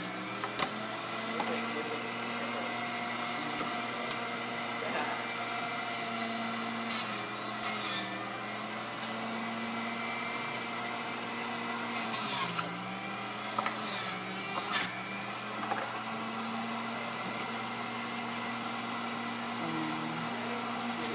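Electric juicer motor running with a steady hum as baby cucumbers are pressed down its feed chute. Its pitch dips briefly about twelve seconds in as it slows under the load, and a few sharp knocks come through along the way.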